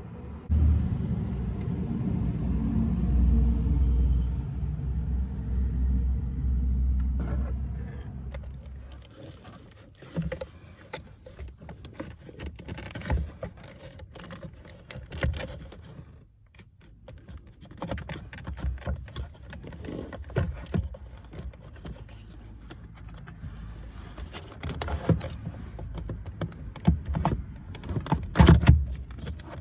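A motor running with a steady low hum for the first seven seconds or so, then fading out. After that come scattered clicks, knocks and scraping, as of parts being handled.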